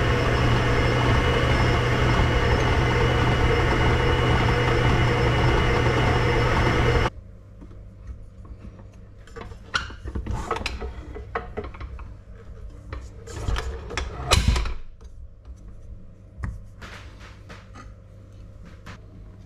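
Electric stand mixer's motor running steadily as its flat beater works pastry dough, cutting off suddenly about seven seconds in. After it stops, scattered scrapes and knocks of dough being handled against the metal beater and steel mixing bowl.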